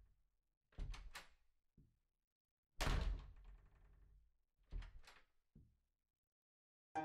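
A series of heavy thuds and knocks, each dying away quickly. A quick pair of knocks and a soft one come early, then one loud thud about three seconds in, followed by another quick pair and a soft knock.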